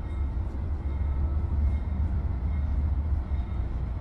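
Container freight train rolling past, a steady low rumble.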